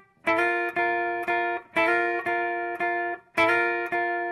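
Guitar music: chords strummed about twice a second, each ringing briefly, with a short break near the end.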